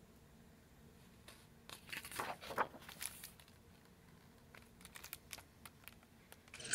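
A page of a hardcover picture book turned by hand: paper rustling and crinkling for about a second and a half, followed by a few faint ticks from the book being handled.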